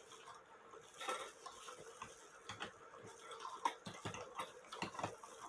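Cuckoo clock movement being handled and fitted onto a test stand: scattered light clicks and clinks at uneven intervals, with one sharper click a little past the middle.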